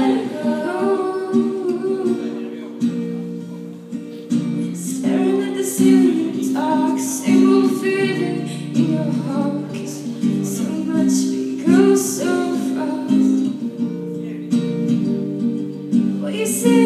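Live acoustic guitar strumming chords, with girls' voices singing a slow pop ballad over it in phrases.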